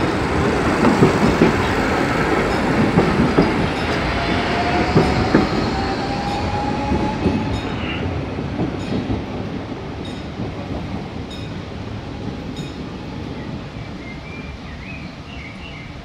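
CAF-UTA 3700 electric light-rail train passing close by and running away: wheels clattering over rail joints and the crossing, with a thin whine rising slowly in pitch. The sound fades steadily as the train draws into the distance.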